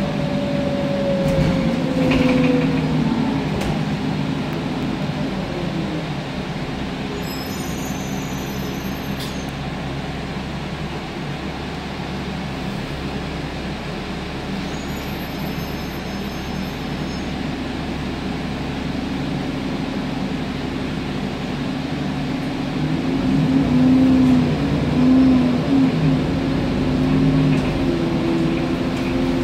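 Alexander Dennis Enviro 400 double-decker bus heard from inside the lower deck: engine and drivetrain running as a falling whine slows it at the start, then a steady lower idle while it stands at a traffic light. About 23 seconds in, the engine note rises and grows louder as the bus pulls away.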